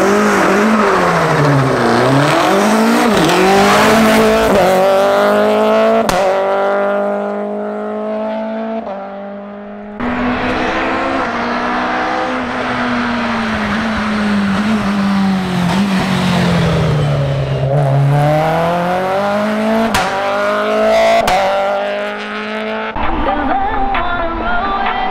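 Renault Clio race car engine launching from a hill-climb start and accelerating hard, its pitch climbing and dropping back at each gear change. Further up the course the revs fall as the driver lifts off, then climb again as the car accelerates toward the bends.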